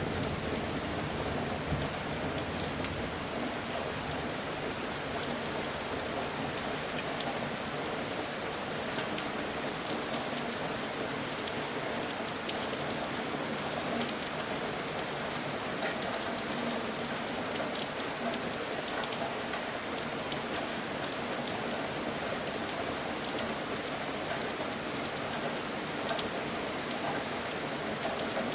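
Steady rain falling, a constant even hiss with scattered individual drops ticking on surfaces.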